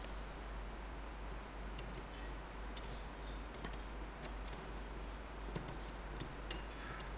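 Irregular light metallic clicks and clinks of an adjustable wrench on the steel nut and bolt of a homemade flat-bar bending tool, a few sharper ones in the second half, over a steady background hiss.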